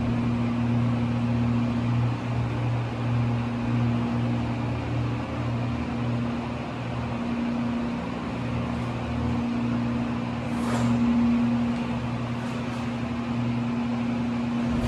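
Otis hydraulic elevator car travelling up, heard from inside the cab: a steady low hum as the hydraulic pump drives the car, starting as the ride begins.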